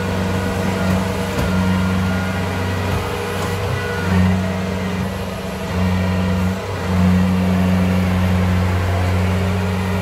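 Small crawler rice combine harvester's diesel engine running under load as the machine works through deep mud, a steady drone that swells and eases several times.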